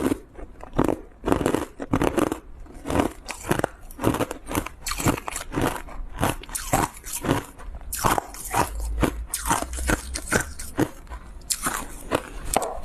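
Frozen matcha ice being bitten and chewed close to the microphone: a quick, irregular run of sharp crunches, several a second, as the hard ice cracks between the teeth.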